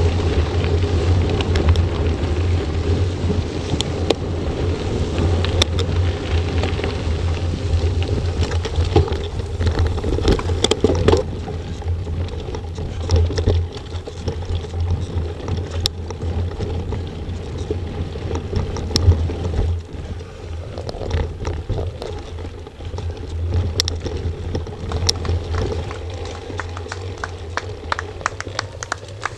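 Riding a mountain bike, recorded on board: wind rumbling on the microphone and tyres on gravel and dirt, with frequent sharp rattles and clicks from the bike over rough ground. It is a little quieter in the second half, when the trail turns into slower forest singletrack.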